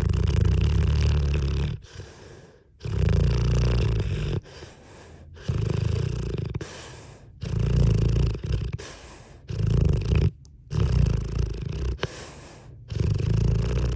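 A sleeping pet snoring: about seven low snores, each a second or two long, coming roughly every two seconds with quieter breaths between.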